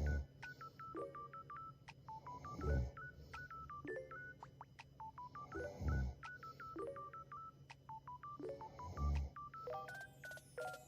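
A woman snoring: four deep snores about three seconds apart, with short high beeping notes of a background tune running between them.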